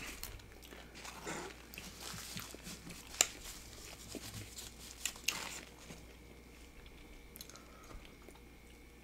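Close-miked chewing and biting of tacos, with a few sharp mouth clicks and smacks.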